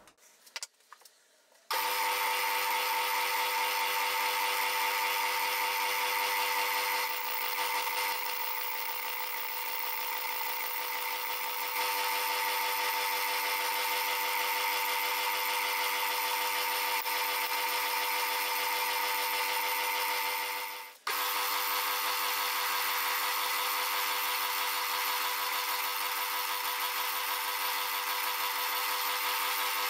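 Metal-working lathe running steadily as it machines an aluminium bar, first facing it and then drilling it with a twist drill, with a constant whine from its motor and gears. The sound starts about two seconds in, drops out briefly about twenty seconds in, then resumes.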